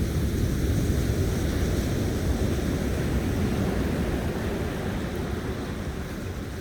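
Sea breeze buffeting a smartphone's built-in microphone as a dense low rumble, over the steady wash of surf on the beach. It eases slightly near the end.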